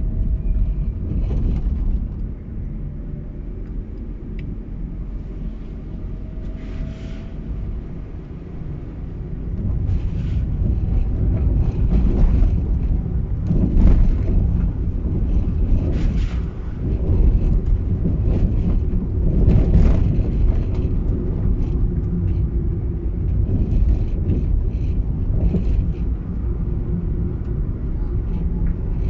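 A car being driven, with a steady low rumble of engine and road noise and occasional brief knocks from bumps. It gets louder about a third of the way in.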